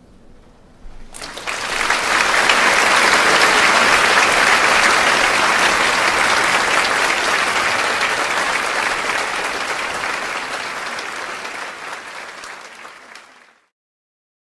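Audience applauding. It starts about a second in, swells quickly, tapers slowly, then cuts off abruptly near the end.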